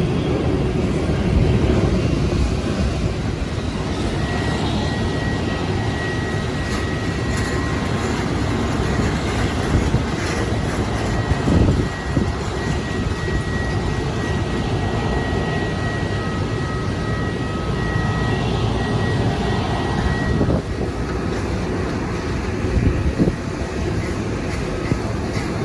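Jet airliner engines running at an airport, a steady rumble with a thin high whine held through the middle of the stretch.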